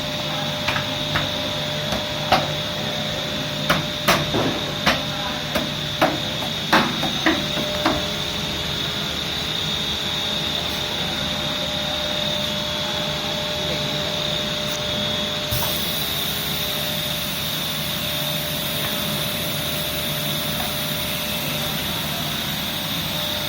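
Hot plate plastic welding machine running with a steady hum and a constant high whine. About a dozen sharp knocks and clanks come in the first eight seconds, then only the steady running, with a hiss joining about two-thirds of the way through.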